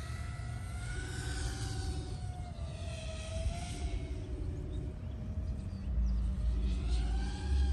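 6-inch FPV quadcopter's motors (FlyfishRC Flash 2605 1750 kV on 6S) whining in flight, the pitch rising and falling slowly with the throttle. A low rumble swells in over the last couple of seconds.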